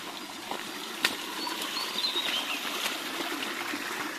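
Running water on a rocky, wet mountain trail, with footsteps knocking on the stones (a sharp knock about a second in) and a few faint, short, high bird chirps near the middle.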